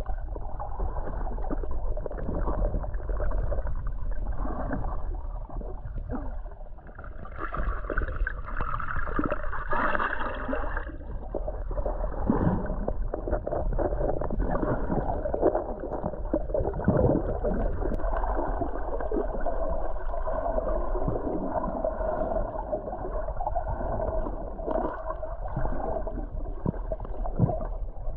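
Muffled sloshing and gurgling of stream water close against the microphone, with irregular splashes of swimming and a heavy low rumble.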